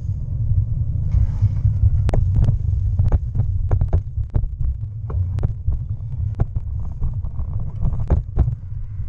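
Bicycle ridden over a rough towpath, heard on an action camera: a constant low rumble with frequent sharp knocks and rattles as the bike jolts over the surface.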